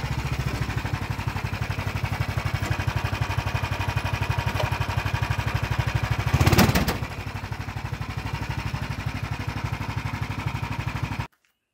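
The engine of a lifted off-road golf cart build running with an even, rapid pulsing beat as the cart creeps along. It revs up briefly about six and a half seconds in, settles back, and stops abruptly near the end.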